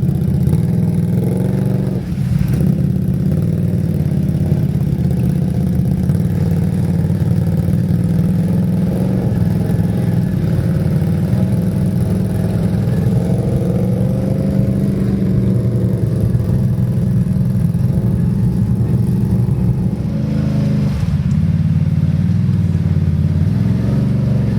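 Quad bike (ATV) engine running under load as it is ridden, its pitch rising and falling with the throttle, with brief dips about two seconds in and near the end.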